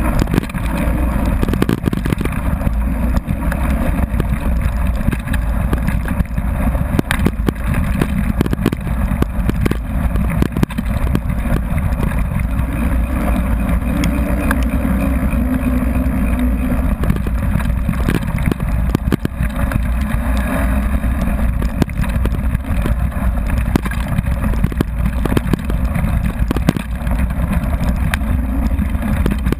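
Mountain bike rolling fast downhill on a gravel forest road, recorded from a camera on the bike: a steady low rumble of tyre and wind noise, with constant small rattles and knocks as the bike runs over the gravel.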